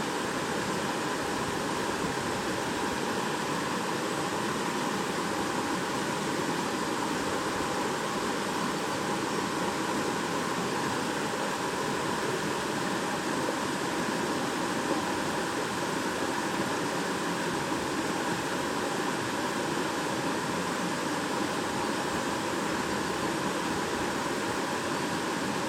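Shallow stream babbling over stones: a steady rush of running water.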